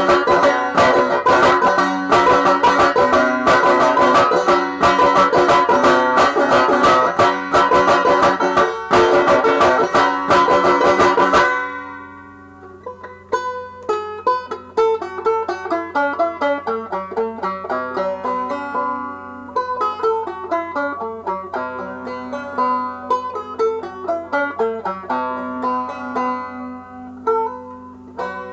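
Solo banjo playing an old-time blues tune: fast, loud strumming for about the first eleven seconds, then suddenly quieter, with single notes picked one at a time.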